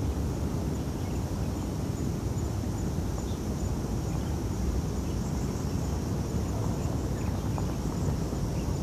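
Wind rumbling steadily on the microphone, with a faint high steady chirring of insects above it.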